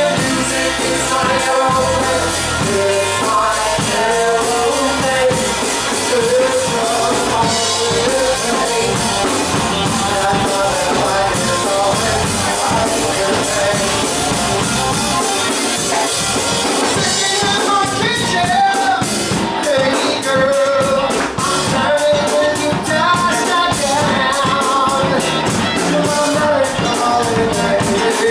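A rock band playing with a lead singer over a full drum kit. About two-thirds of the way through, the cymbal strokes become sharper and more regular.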